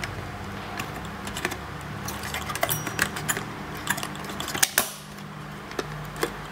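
Plastic push-pins of an Intel stock CPU cooler being pressed down into the motherboard's mounting holes: a string of small irregular plastic clicks and taps, the sharpest about two-thirds of the way through. A click means the pin has locked into place.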